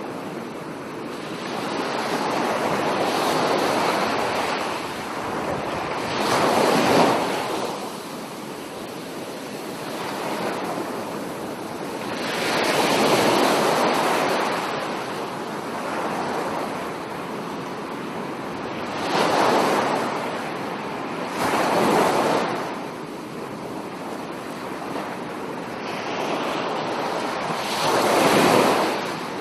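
Small waves washing up a sandy beach, the surf swelling and falling away every few seconds.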